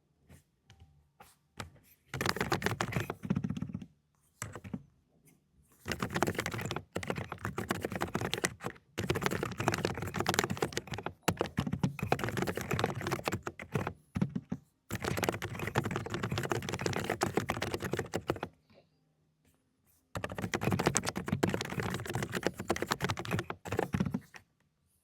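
Fast typing on a mechanical keyboard with silent cotton-candy switches: quick runs of soft keystrokes lasting a few seconds each, with brief pauses between them.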